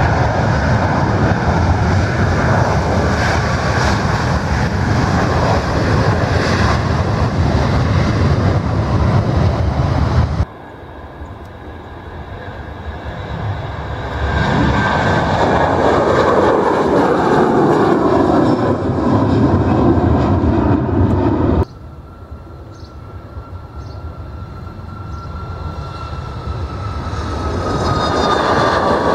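Boeing 737 jet engines at takeoff thrust, in three takeoffs joined by sudden cuts: a loud, steady rumble of the takeoff roll, then an older 737 lifting off with its engine noise building, then a climbing 737 with an engine whine that slowly falls in pitch.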